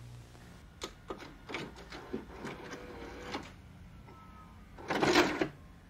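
A few irregular sharp clicks and clunks, then a short, louder rushing burst about five seconds in.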